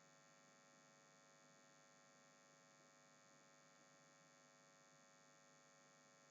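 Near silence: only a faint, steady electrical hum from the recording chain.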